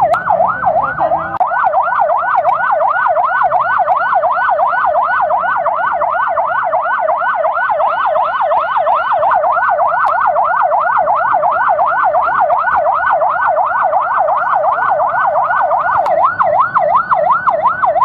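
Ambulance siren in a fast yelp, sweeping up and down about four times a second without a break.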